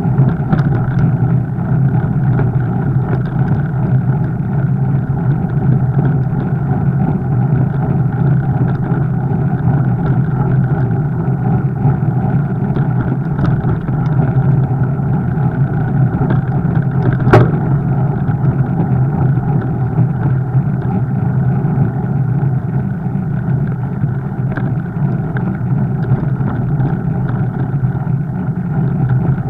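Steady rumbling riding noise of a fat bike in motion, picked up by a camera carried on the bike or rider, with one sharp click about 17 seconds in.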